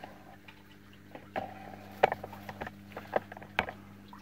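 Scattered light clicks and taps of hands handling the camera and small plastic spider pots on a wooden desk, the sharpest tap about two seconds in.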